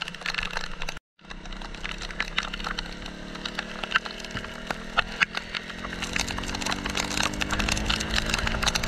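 Rain drops crackling densely against the camera and microphone while riding on a wet road, over tyre and wind hiss. About halfway through, the KTM Duke 200's single-cylinder engine comes up under it, its note rising steadily as it gains revs.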